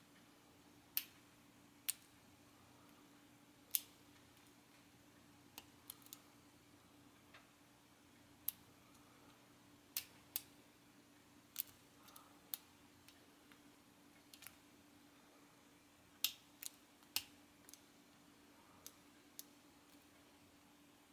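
Lock picking in a five-pin Corbin rim cylinder: a metal pick and tension wrench making sharp, irregular clicks against the pins and keyway, a few every couple of seconds.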